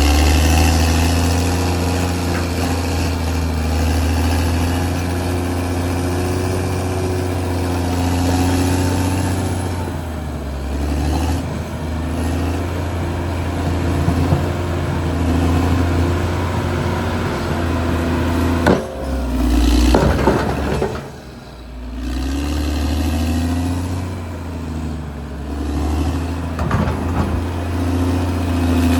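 Caterpillar D6R XL bulldozer's diesel engine running steadily at working speed. Its note sags briefly about ten seconds in and again around twenty-one seconds in, and a few sharp knocks come near the two-thirds mark.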